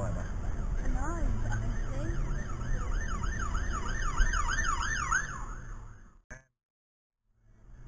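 Ambulance siren heard from inside a car over low road rumble: a slow wail, then a fast up-and-down yelp at about three cycles a second. It fades out about six seconds in, then a click, a moment of silence, and the road noise fades back.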